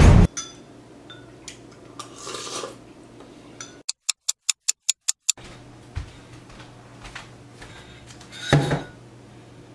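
Spoon clinking lightly against a ceramic mug, then a quick run of about eight sharp ticks over a second and a half with dead silence between them. Near the end, empty plastic bottles and a jug are handled on a kitchen counter with a louder rustling clatter and bump.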